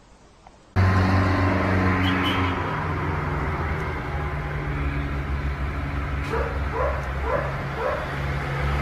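A vehicle's engine running with a steady low hum, starting suddenly under a second in; in the last few seconds a dog yips about five times in quick succession.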